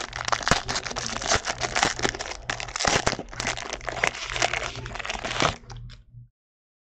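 Foil trading-card pack wrapper crinkling and tearing with a dense crackle of sharp clicks as it is handled and opened. It stops dead about six seconds in.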